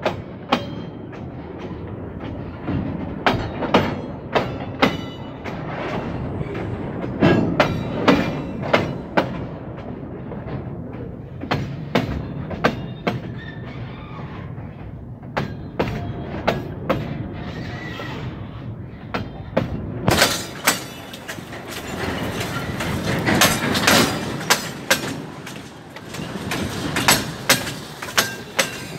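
Freight wagons rolling past close by, their steel wheels clacking over a rail joint in quick groups of sharp clicks over a steady rumble.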